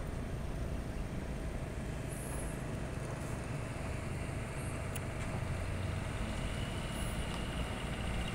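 Steady low engine rumble under a constant hiss, with a few faint high chirps.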